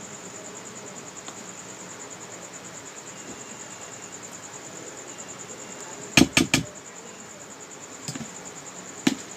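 Steady, finely pulsing chirring of insects such as crickets. Three sharp clicks come in quick succession about six seconds in, followed by two more single clicks near the end.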